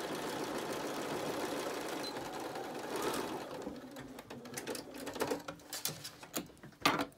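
Electric home sewing machine stitching steadily through a fabric mask seam, stopping about three and a half seconds in. Scattered light clicks and rustles follow as the sewn masks are pulled out from under the presser foot.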